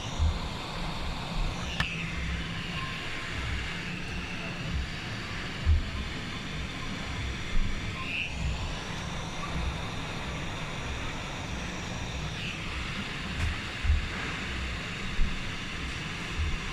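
Steady whir of a small motor or fan with a hiss of moving air, and a few short low knocks here and there.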